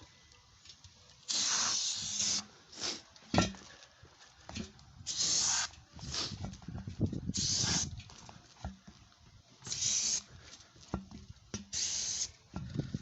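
Aerosol can of brake parts cleaner spraying in about five short hissing bursts, each under a second, around the inside of a tire to reseat its broken bead on the wheel. A single knock comes about three seconds in, and faint handling noise runs between the bursts.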